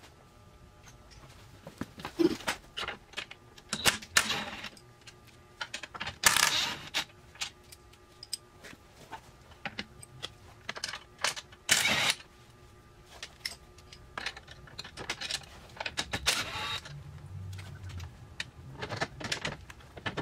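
Socket tools working the bolts of a UTV's front bumper hoop: a run of metallic clicks, ratcheting and clinks, with two short, louder, harsher bursts about six and twelve seconds in.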